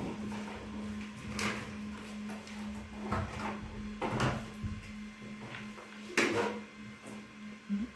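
Several short knocks and scuffs, the loudest about six seconds in, over a steady low hum.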